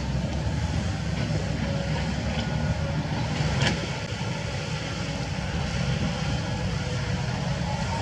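Kobelco SK75 mini excavator's diesel engine running steadily, with a single sharp knock about three and a half seconds in.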